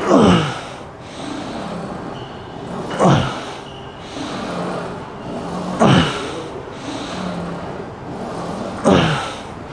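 Four forceful breaths out from a lifter, about three seconds apart, each sudden and falling in pitch: one effortful exhale on each rep of a heavy leg press set.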